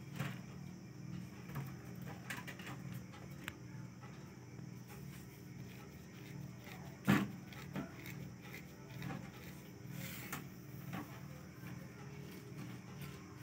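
Kittens playing: scattered light taps and scuffles, with one sharp knock about seven seconds in, over a steady low hum.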